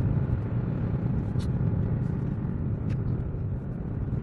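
Car driving along, heard from inside the cabin: a steady low rumble of engine and tyre noise.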